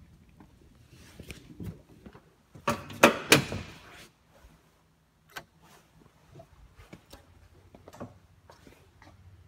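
A quick cluster of loud clunks and knocks about three seconds in, like a door or drawer being shut, with scattered clicks and handling rustle before and after.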